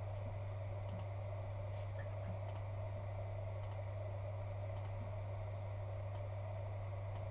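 Computer mouse clicking several times at irregular intervals, faint against a steady low hum.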